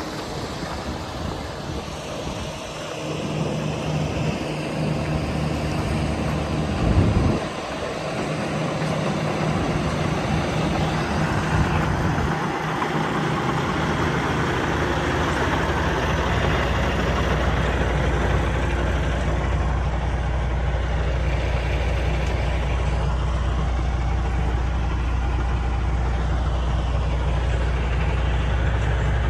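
Freightliner Cascadia 125 semi tractor's diesel engine idling steadily, with a deeper, heavier rumble from about halfway through. There is a single loud thump about seven seconds in.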